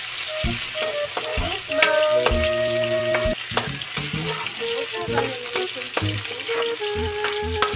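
Sliced onions and garlic sizzling in hot oil in a metal wok, stirred with a spatula that scrapes and clicks against the pan. Steady pitched tones come and go in the background.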